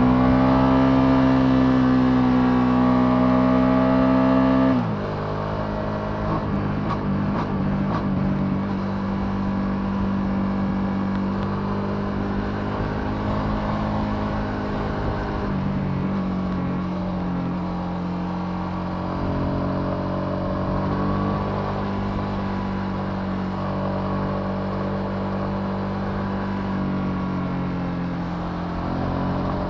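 Ducati Multistrada V2S's 937 cc V-twin held at high revs under load, its note rising slightly. About five seconds in the throttle closes suddenly and the engine settles into a quieter, lower, steady cruising note, with small changes in pitch as the rider eases on and off.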